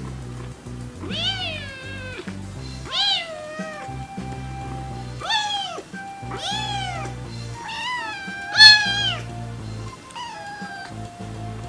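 Young kitten meowing repeatedly, about seven high, rising-and-falling meows spaced a second or two apart, the loudest about three-quarters of the way through. Background music with steady low notes runs underneath.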